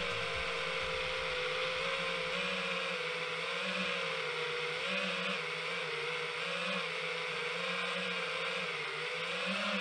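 Vorsin FPV quadcopter's motors and propellers whirring, heard from on board, the pitch wavering gently up and down with throttle.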